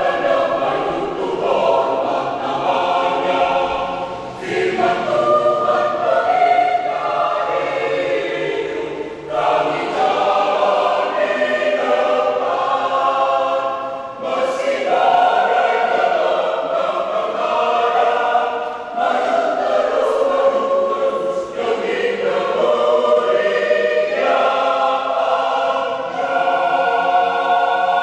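A church choir of about twenty voices singing a hymn in parts, in long sustained phrases with short breaks for breath between them.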